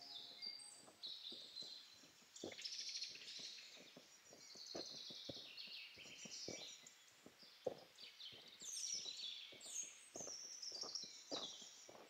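Several woodland birds singing and calling over one another with high chirps and trills. Faint irregular ticks and taps sound underneath.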